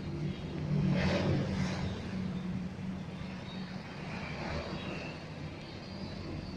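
A steady low motor hum, like an engine running, louder for a moment about a second in.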